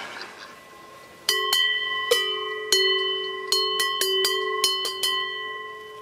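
Large cowbells on cattle clanking irregularly, about a dozen strikes starting about a second in, each ringing on in several steady tones that overlap.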